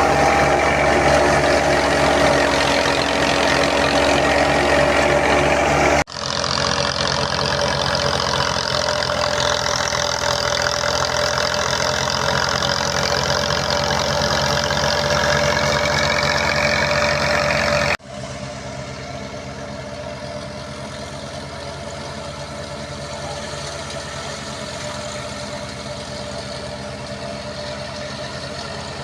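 Tractor engine running steadily, driving a wheat thresher, with a constant machine hum. The sound changes suddenly twice, and the last stretch is quieter.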